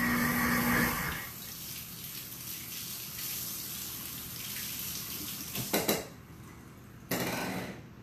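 Kitchen tap running into a sink as dishes are rinsed, the flow cut off about six seconds in and running again for under a second shortly after.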